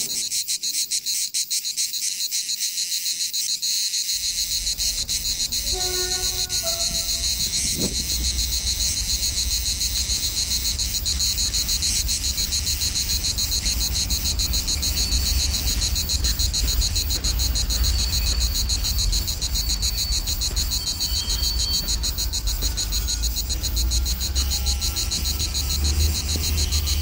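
A steady, fast-pulsing chorus of cicadas, with the low rumble of an SNCF diesel locomotive coming through a tunnel, starting about four seconds in and growing louder as it nears.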